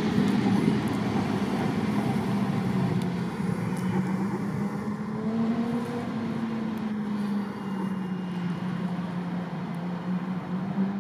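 Double-decker passenger train running into a station: a steady rumble of wheels on rail with a drawn-out low drone that wavers slightly in pitch. It cuts off abruptly at the end.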